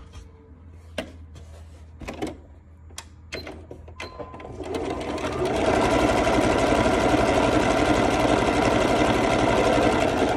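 A few light clicks, then an electric sewing machine starts about four seconds in, picks up speed and runs steadily, stitching a seam.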